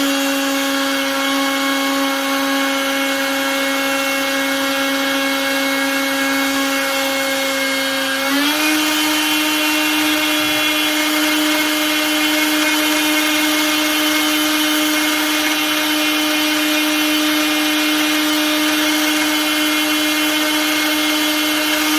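Makita RT0701C compact router motor running unloaded with a steady high whine. Its pitch steps up slightly once, about eight seconds in. It is being test-run to see whether its speed dial, shimmed with a strip of plastic key card, still creeps from the vibration.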